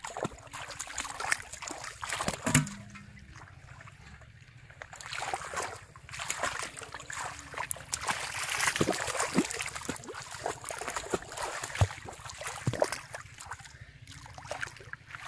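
Shallow muddy water splashing and sloshing irregularly as a person wades through it and gropes in the mud with both hands, busiest around the middle.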